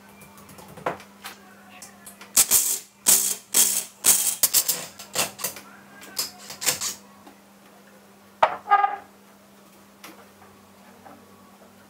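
Cordless impact driver rattling in a series of short bursts as it drives screws through a wooden batten into the wall. A couple of wooden knocks follow a little after eight seconds in, as the board panel is hung onto the batten.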